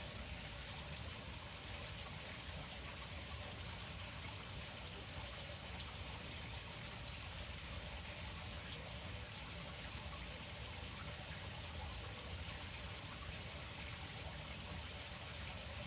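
A steady, faint patter and trickle of water over a low background rumble.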